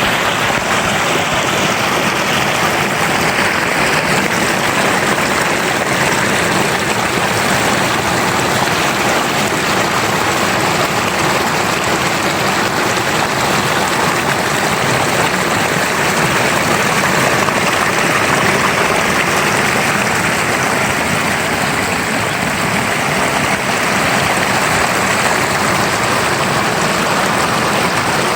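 River water flowing in a steady, loud rush.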